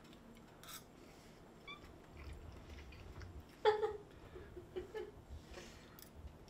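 A house cat meows once, a short pitched call a little over halfway through, with a few faint smaller sounds after it.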